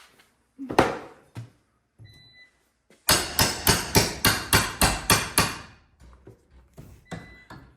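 Hammer blows: one hard strike about a second in, then a quick run of about ten strikes, around four a second, that stops about halfway through.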